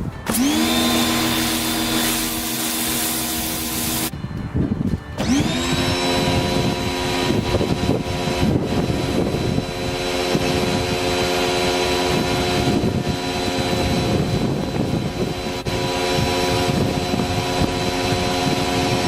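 V-TUF V3 electric pressure washer's motor spinning up and running with a steady hum over the hiss of its spray. It stops about four seconds in and starts up again about a second later, rising in pitch as it gets going.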